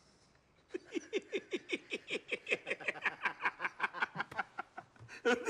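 Two men laughing together, a rapid run of 'ha-ha' pulses, about six or seven a second, that starts suddenly about a second in.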